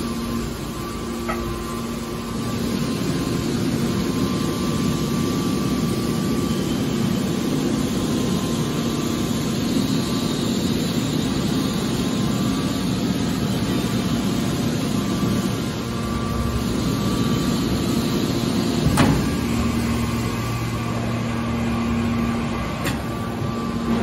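Hydraulic scrap-metal baler running with a steady mechanical hum. A single sharp clunk comes a little past two-thirds through, and a deeper hum joins for a few seconds after it.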